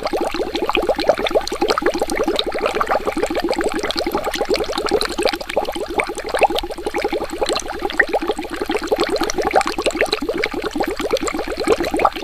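Water bubbling steadily: a dense, continuous stream of small bubbles, each a short rising blip.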